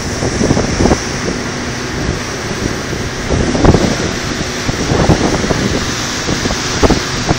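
Wind buffeting the microphone, loud and gusting in uneven surges, over the rush of water past the boat.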